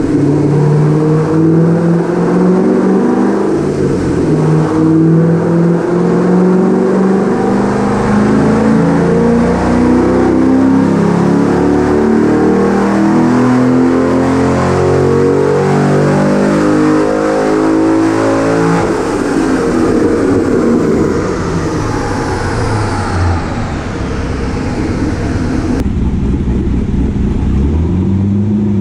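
C6 Corvette's LS V8, fitted with a stage 3 camshaft, making a dyno pull: the revs climb steadily under full load for about twenty seconds, then the throttle closes and the revs fall away. A high whine falls in pitch as it winds down.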